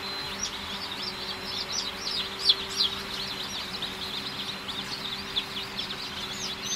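A crowd of newly hatched chicks peeping nonstop, many short, high, downward-sliding cheeps overlapping, over a steady low hum.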